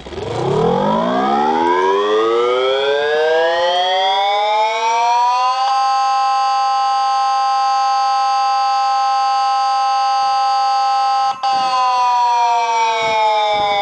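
Homemade siren sounding: a loud siren tone that starts suddenly and rises in pitch over about five seconds, holds a steady pitch, cuts out for an instant, then begins to fall slowly near the end.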